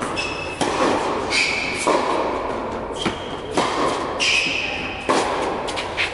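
Tennis rally: balls struck by rackets and bouncing on the court, a sharp pop every second or so, echoing around an indoor tennis hall, with short high squeaks between the hits.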